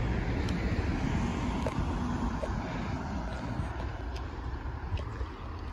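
Blue Bird school bus engine running as the bus drives away, its low sound fading steadily, over light road traffic.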